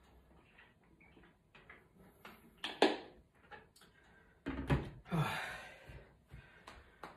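Large plastic water jug being drunk from and handled: a few small clicks and knocks, a sharp click about three seconds in, then a heavier knock about four and a half seconds in as the jug is set down on a wooden shelf.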